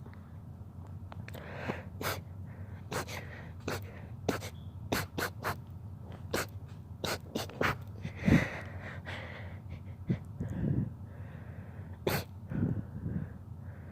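A rapid sneezing fit: a dozen or more short, sharp sneezes in quick succession, some coming in close pairs, with breaths between them. The loudest sneeze comes about eight seconds in.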